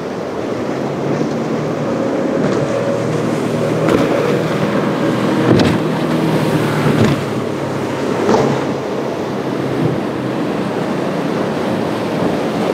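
Outboard-powered center-console boat running hard through rough inlet waves: a steady engine drone over the rush of surf and spray, with a few sharp thumps and splashes in the middle as the hull hits the waves.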